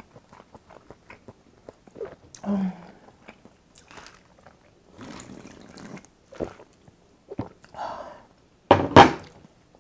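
Close-miked eating sounds: chewing with many small wet mouth clicks and smacks, and a short hummed "mm" about two and a half seconds in. Then swallowing sips from a glass, and a loud, short burst of sound near the end.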